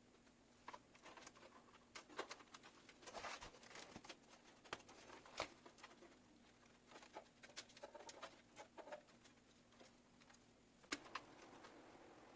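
Faint, scattered clicks, taps and rustles of hands handling PC components and cables, irregular and close-up, over a low steady hum.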